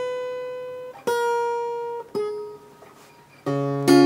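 Acoustic guitar played fingerstyle: three single plucked notes about a second apart, each left to ring, then bass notes and a fuller chord near the end.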